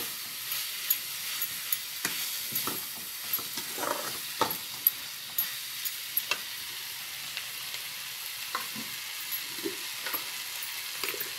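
Prawn heads frying in oil in a metal pan: a steady high sizzle. A metal spatula scrapes and clicks against the pan at irregular moments as the heads are stirred toward golden brown.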